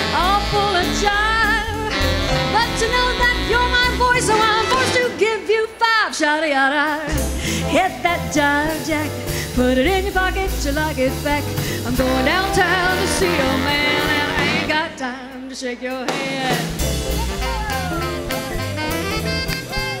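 A woman singing a swing jazz standard with vibrato, backed live by an eight-piece swing dance band of piano, archtop guitar, upright bass, drums, trombone and saxophone. The bass and drums drop out briefly twice, about six seconds in and again near fifteen seconds.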